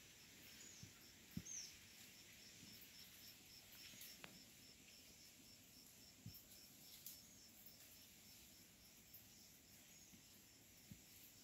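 Near silence: faint forest ambience with a small high-pitched chirp repeating steadily about three times a second, typical of an insect. There is a short falling bird-like call about a second and a half in, and a few soft low thumps, the loudest just before it.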